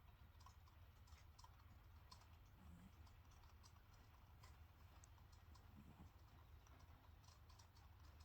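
Near silence: a steady low hum of room tone with faint, irregular small ticks.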